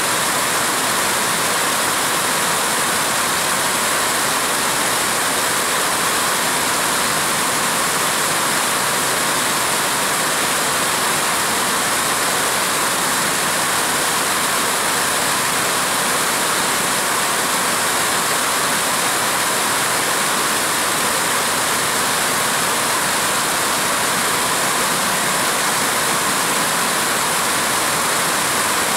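Steady din of weaving-mill machinery, heard as a dense, even hiss with no breaks or distinct strokes.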